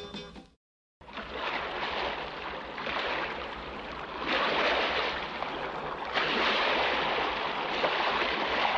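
The last notes of a song stop in the first moment, followed by a brief silence. Then a recorded effect of sea surf begins, a wash of waves that swells and eases every second or two as the next track opens.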